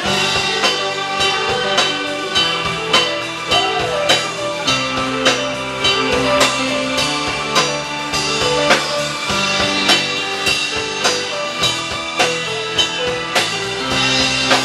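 Live band playing an instrumental passage: drum kit keeping a steady beat under bass, electric guitar and keyboard.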